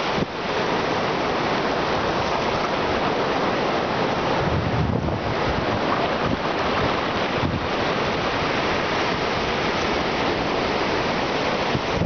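Sea surf breaking and washing up a sandy beach, a steady rushing noise, with strong wind buffeting the microphone.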